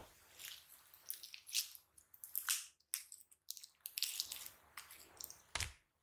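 Glossy sequin-filled slime being stretched and pulled, giving a run of small wet pops and crackles as air pockets snap. About five and a half seconds in, a heavier plop comes as the stretched mass falls back onto the pile.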